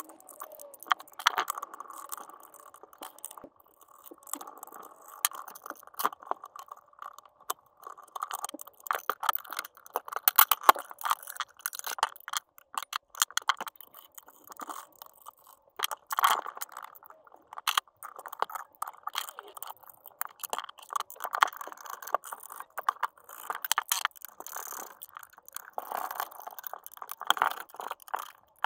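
Hands working apart a Milwaukee cordless circular saw's plastic housing and undoing its screws with a screwdriver: an irregular run of small clicks, rattles and scrapes of plastic and metal parts.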